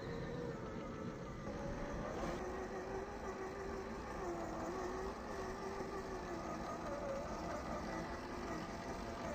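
Whine of a 1/10-scale RGT Rescue LC70 RC rock crawler's electric motor and gears as it crawls over rock, the pitch stepping up and down with the throttle over a low rumble.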